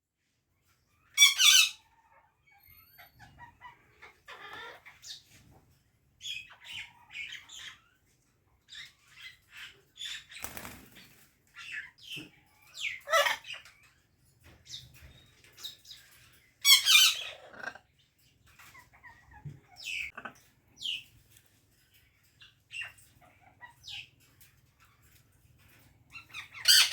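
Parrot calling: a series of short, high-pitched screeches and chirps. Loud screeches come about a second in, twice in the middle and near the end, with quieter chattering chirps between them.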